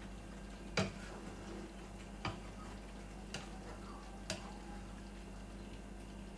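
Four sharp knocks, uneven in spacing, from a kitchen utensil striking a frying pan while vegetables are moved about in it. The first knock is the loudest, and a steady low hum runs beneath.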